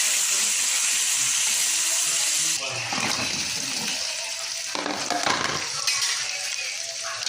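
Kitchen cooking sounds: a steady rushing hiss that cuts off abruptly about two and a half seconds in, followed by quieter sizzling with stirring and a few clatters of utensils.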